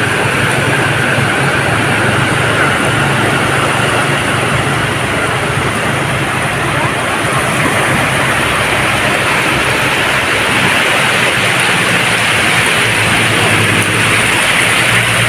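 Sea surf washing continuously onto the beach, with a steady low engine hum underneath.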